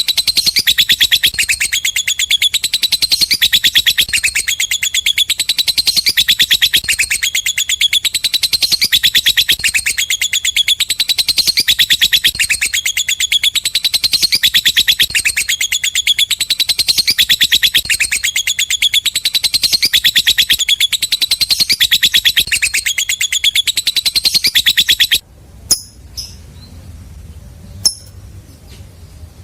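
Lovebird 'ngekek': a long, unbroken run of rapid, shrill, high-pitched chattering notes in a steady pulsing rhythm, the kind of song played as a lure to set a silent lovebird singing. It cuts off suddenly near the end, leaving a few faint clicks and short chirps.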